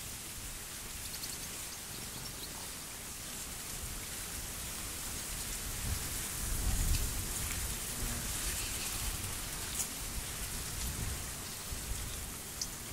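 Outdoor ambience of wind on the microphone: a steady high hiss with low rumbling gusts, strongest about six to seven seconds in.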